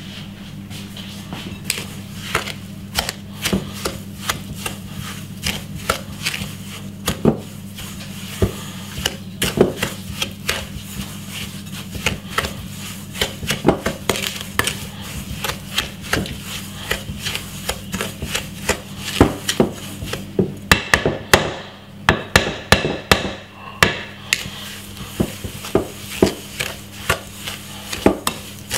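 Wooden spoon beating butter and sugar in a glass mixing bowl: irregular knocks and scrapes of the spoon against the glass as the butter and sugar are creamed together, coming faster and louder in the last third.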